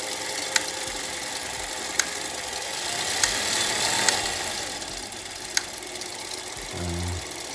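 Bolex H16 non-reflex 16 mm cine camera's spring-wound clockwork motor running with a loud, steady whir and a few sharp clicks.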